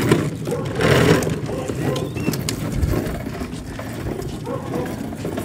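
Hard plastic wheels of a push-along ride-on toy car rolling and rattling over a concrete sidewalk, with a brief louder rush of noise about a second in.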